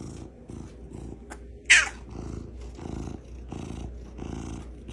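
Domestic cat purring in a rough rumble that pulses about twice a second, with one loud, short high cry falling in pitch a little under two seconds in.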